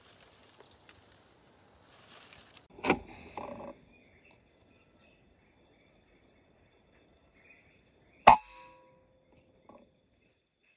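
Air rifle shot about eight seconds in: a single sharp crack with a brief metallic ring after it. A smaller knock with rustling comes about three seconds in.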